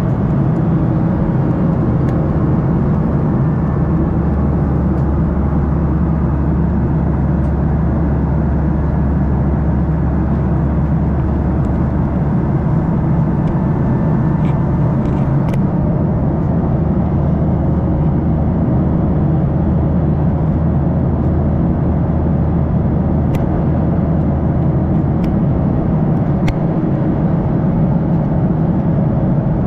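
Steady cabin drone of a Boeing 737-800 in flight, heard from a window seat beside the wing: the hum of the CFM56-7B turbofan engines and the rush of air past the fuselage. A few faint clicks come in the second half.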